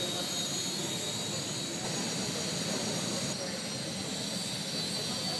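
Flyzone SE5 micro RC biplane's small electric motor and propeller in flight, a steady high whine whose pitch shifts a little about two seconds in and again near the end as the throttle changes.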